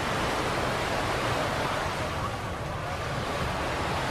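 Atlantic Ocean surf washing onto a beach: a steady rush of breaking waves.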